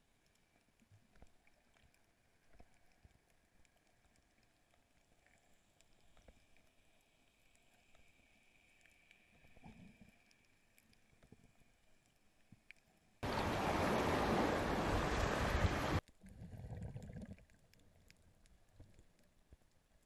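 Muffled underwater sound from a camera housing: faint scattered clicks and crackle, broken just past the middle by a loud rushing water noise that starts and stops abruptly after about three seconds, then a shorter, softer one.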